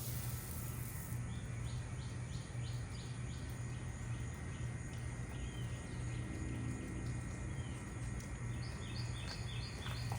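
A songbird singing two runs of about six quick, repeated chirping notes, the second run near the end, over a steady low hum.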